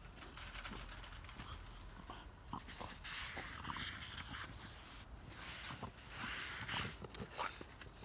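French bulldog sniffing and breathing noisily, in repeated short bursts, with its nose to a wall.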